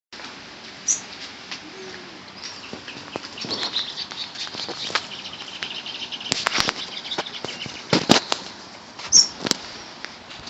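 Rain falling, a steady hiss with many scattered sharp taps and knocks, the loudest cluster about eight seconds in. Brief high chirps sound about a second in and again near the end.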